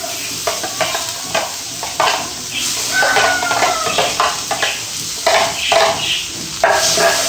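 Shredded cabbage and capsicum sizzling in hot oil in a metal karahi as they are stirred. The spoon scrapes and knocks against the pan in about ten short strokes.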